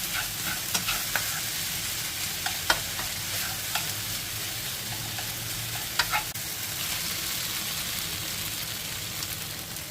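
Fried rice sizzling in a hot pan, stirred and tossed with a spatula that clicks and scrapes against the pan at irregular moments.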